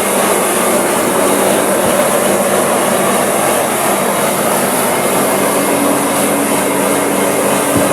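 Steady, loud machinery noise with a faint hum of a few held tones running through it.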